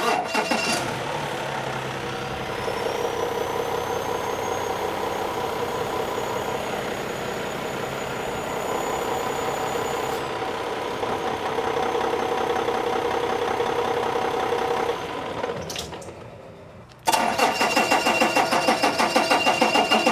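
Cummins ISX15 inline-six diesel engine starting and running at idle, with a thin whine rising in pitch over the first few seconds, then holding steady. Near the end the sound fades and drops out briefly, then comes back louder with a fast, even pulsing.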